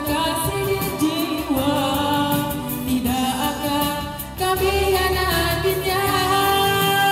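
Music: a Malay patriotic song, with long held sung notes over the accompaniment.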